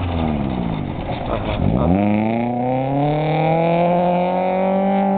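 Rally car engine on a dirt autocross course: the revs fall for about two seconds as the car slows, then the engine pulls hard with its pitch rising slowly and steadily as the car accelerates away.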